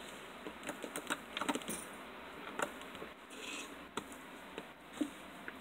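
Hard-top slime being pressed and stretched by hand, giving a string of sharp, irregular clicks and small pops.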